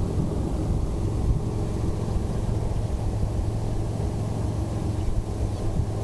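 Steady low rumble of a vehicle engine idling, with a constant low hum.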